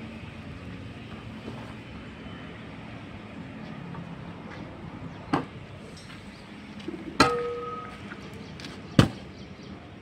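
Three sharp metal knocks from construction hand tools (shovels, iron pans) being handled on the concrete deck, about two seconds apart from halfway through. The second is a clang that rings briefly. They sound over a steady background noise.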